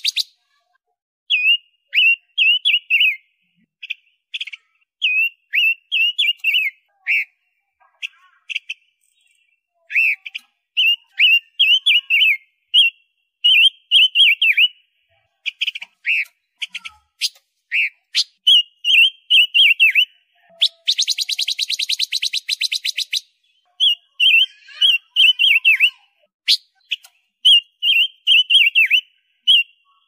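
Silver-eared mesia (robin panca warna) singing loudly: short, quick phrases of whistled warbled notes, repeated with brief pauses, and one rapid rattling chatter lasting about two seconds, about two-thirds of the way through.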